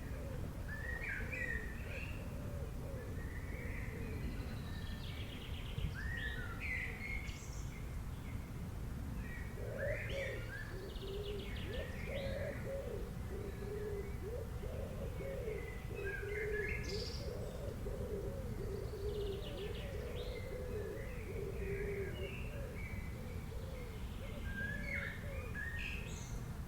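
Forest birds chirping and singing with short, high calls and trills throughout. A lower-pitched run of repeated call notes joins in from about ten seconds in and fades a few seconds before the end, over a steady low background hiss.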